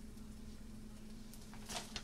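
Faint steady hum with a few brief soft rustles near the end, from a gloved hand sprinkling shredded cheese onto a tortilla in a stainless-steel skillet.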